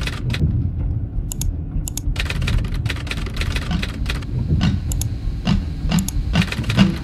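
Computer-keyboard typing sound effect: irregular runs of sharp keystroke clicks with short pauses between them, over the low, steady rumble of a car driving.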